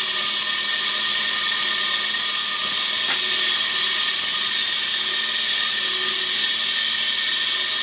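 Homemade model dynamo, with a wire-wound rotor and brass shim-stock brushes on the commutator, running as a small electric motor off clip leads: a steady, high-pitched whir.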